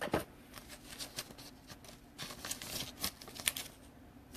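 Trading cards being handled: light clicks, taps and rustles as cards are picked up and moved, with a sharper tap right at the start.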